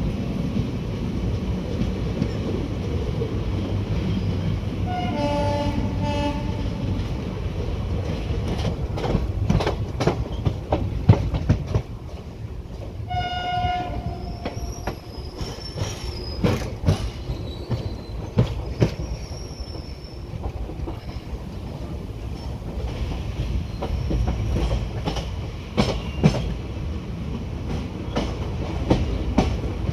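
Passenger train running at speed, heard from an open coach door: a steady rumble of wheels on track, with the locomotive horn sounding twice, about five seconds in for a second or so and again around thirteen seconds. In the middle and near the end the wheels clatter over rail joints and points.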